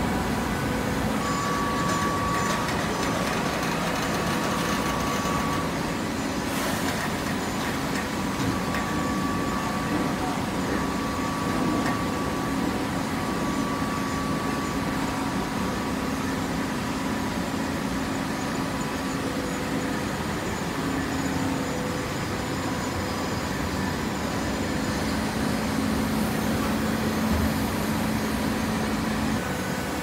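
TCM horizontal hydraulic baler running: a steady machine drone with a few faint steady tones held underneath it.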